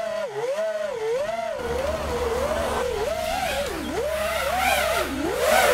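FPV drone's electric motors and propellers whining, the pitch swinging up and down continuously with the throttle, and getting louder and higher near the end.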